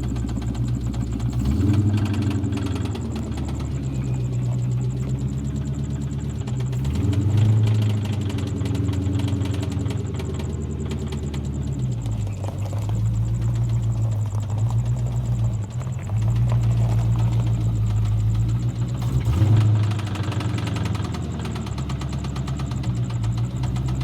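Ford modular V8 (5.0 stroker) in a 1997 Mustang GT running, its speed rising and falling several times, with an engine knock. The knock is under diagnosis and is still there after new valve lash adjusters and some RPM.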